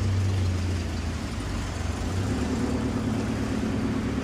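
Steady low hum of road traffic or a running engine, with no distinct sharp sounds.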